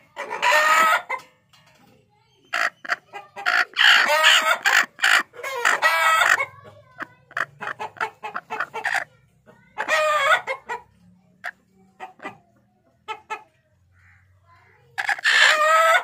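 Chickens calling loudly in about five separate bursts. The longest is a crow of about two seconds, starting around four seconds in.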